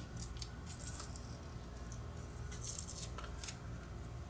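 Hands handling a small pack of AA battery cells, giving a few short, faint scratchy rustles over a low steady hum.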